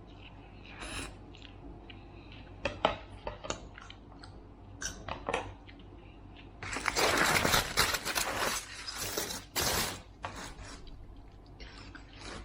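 Forks and spoons clicking and scraping against takeaway food containers during a meal. Past the middle comes a louder stretch of scraping and rustling that lasts about three seconds.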